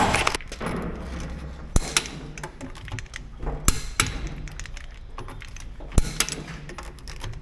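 Irregular light clicks and knocks, a few of them sharper, over a low steady hum.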